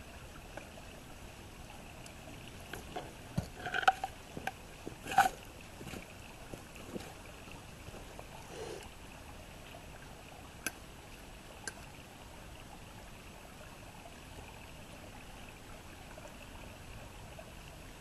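Mora knife blade clinking and scraping against a thin metal mess-kit pot as diced crocodile, bacon and onion are stirred, with a few ringing clinks about four to five seconds in and lighter taps later. A steady faint sizzle of the meat frying in butter runs underneath.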